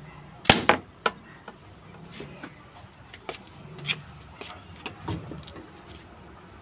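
A homemade slingshot-powered arrow is shot into a plastic bottle of liquid: a sharp smack about half a second in, a second knock right after it and another near one second, then lighter clicks and taps over the next few seconds.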